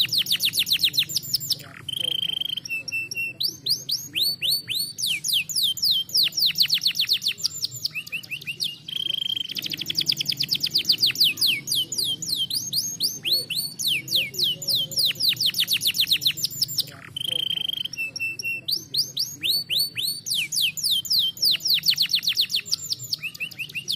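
Domestic canary singing: rapid trills of fast, repeated downward-sweeping high notes, broken by short steady whistled notes, the song phrase coming round about every seven seconds.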